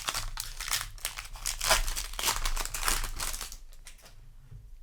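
Crinkling of a foil Magic: The Gathering booster pack wrapper being handled, a dense rustle that dies down about three and a half seconds in.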